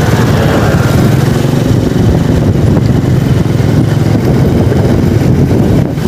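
Motorcycle riding steadily along a road, its engine running under a loud rush of wind on a microphone mounted on the bike.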